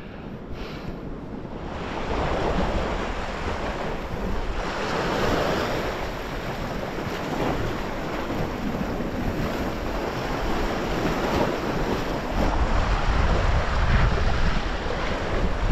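Sea waves surging and washing over shoreline rocks, the noise rising and falling with each surge. Wind buffets the microphone, heavier in the last few seconds.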